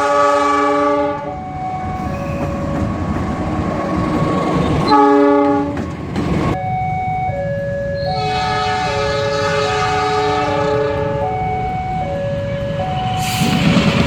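CC206 diesel locomotive's multi-chime air horn sounding the S35 signal: a short blast at the start, another about five seconds in, and a longer one from about eight to eleven seconds, over the rumble of a train that grows loud near the end. A two-note alternating electronic chime repeats throughout.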